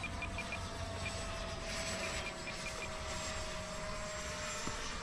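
Electric ducted fan of a Freewing Intruder RC jet (AvantiS v2 fan and motor) flying at a distance at about half throttle: a steady thin whine that sags slightly in pitch. Quick runs of short high beeps sound in the first half-second and again just past two seconds in; these are typical of a radio transmitter's trim switches being clicked while trimming the plane.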